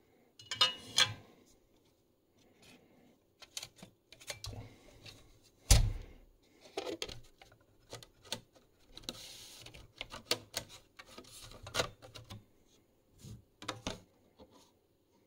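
Thin sheet-metal cover plates of a power supply chassis being handled and lifted off: irregular clicks and light clattering, a heavier knock about six seconds in, and a brief scraping rub about nine seconds in.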